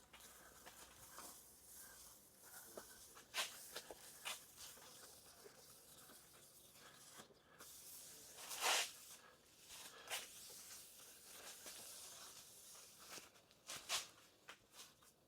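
Faint, scattered rubbing and rustling of a rag wiping down a sanded carbon fiber hood with acetone, in short irregular strokes with one louder swipe about two-thirds of the way through.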